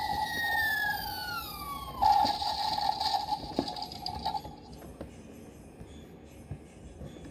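Electronic sound effects from a Soldier Force toy armored vehicle's small built-in speaker: a falling, siren-like tone over a steady hum, then a louder effect that starts abruptly about two seconds in and stops about halfway through.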